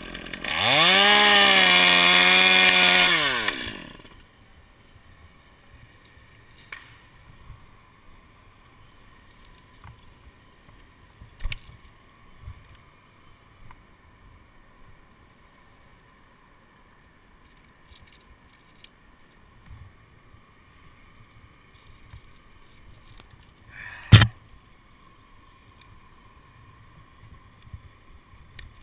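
Chainsaw revving up to full speed for about three seconds, pitch rising at the start and falling away at the end, as it cuts through a pine limb. After it, only faint scattered clicks, and one sharp, loud knock near the end.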